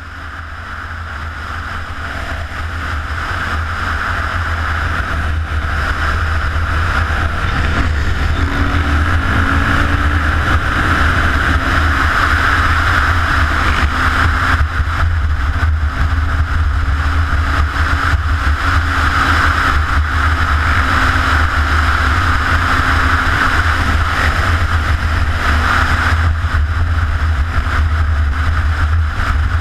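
Motorcycle engine running at road speed under heavy wind noise on the microphone, fading in over the first few seconds. The engine note climbs briefly about eight seconds in, then holds steady.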